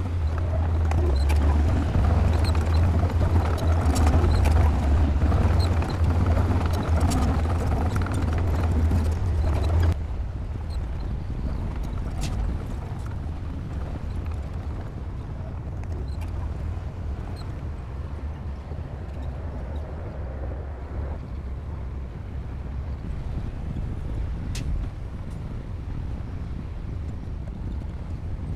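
D60P bulldozer's diesel engine running under load, with the clank and clatter of its steel tracks. About ten seconds in, the sound drops abruptly to a quieter, steady engine run with occasional clinks.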